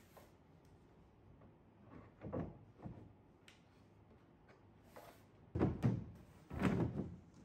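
Hands knocking and pressing the plastic side panel of a screwless IFAM Easy Wave bookshelf to seat the shelves in their slots: a couple of softer thuds about two seconds in, then several louder, heavier thumps near the end.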